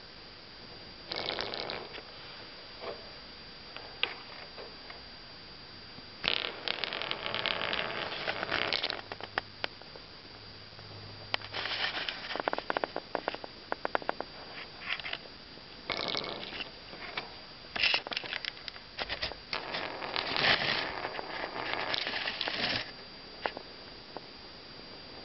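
A 3D-printed plastic tippe top spinning on floor tiles, rattling and scraping against them as it wobbles, tips over and rises onto its stem. The noise comes in several spells of one to three seconds, with quick runs of clicks, and quieter gaps between them.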